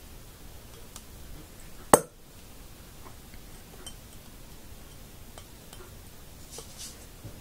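Metal forks and rubber loom bands being handled with a small hook: faint scattered ticks and clicks, with one sharp click about two seconds in.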